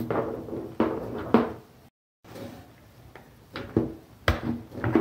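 Handling noise from wiring contactors: a series of sharp knocks and clicks as wires are pushed into and fastened on the plastic contactor terminals, with a brief cut to silence about two seconds in.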